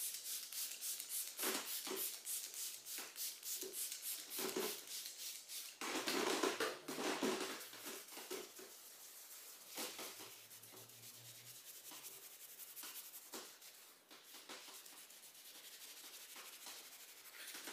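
Faint rhythmic rubbing strokes, about two to three a second, with a louder stretch in the middle. They die away about ten seconds in, leaving near silence.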